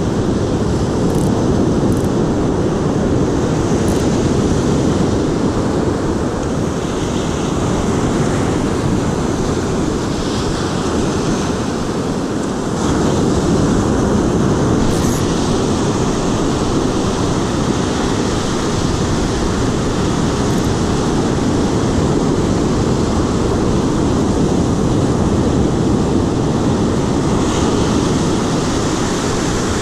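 Surf breaking and washing up a sandy beach, with wind rumbling on the microphone; a steady, loud noise without pauses.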